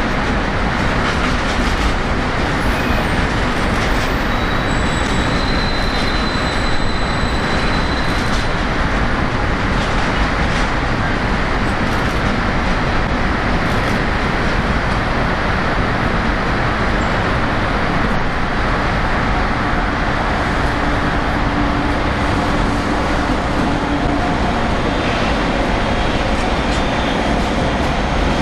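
Train running through the station: a steady, even rumble of wheels on rail, with a low steady tone joining in about two-thirds of the way through.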